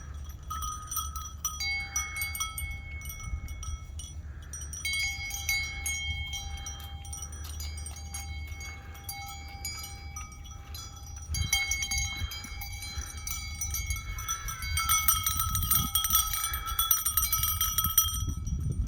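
Metal bells ringing irregularly, several clear tones overlapping and dying away, growing denser and louder for the last few seconds.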